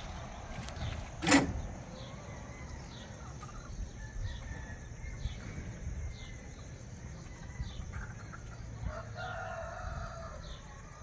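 A rooster crowing, most plainly near the end. There is one sharp knock about a second in, the loudest sound, and faint high chirps repeat about once a second over a low rumble.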